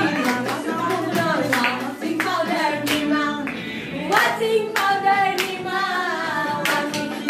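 People singing together, clapping their hands in time at about two claps a second.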